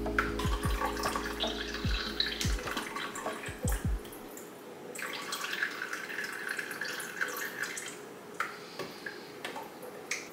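Water pouring and dripping into a potted Philodendron gloriosum's soil as it is watered, in two pours with a pause between. A low steady drone stops about four seconds in.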